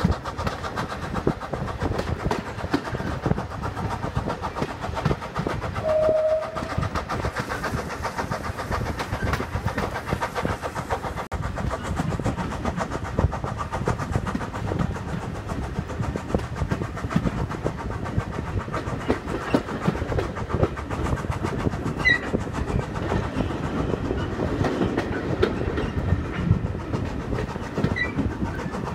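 Heritage railway coaches running along the line, heard from an open carriage window: a steady rumble of wheels on the rails with clattering over the rail joints. About six seconds in there is a brief high note.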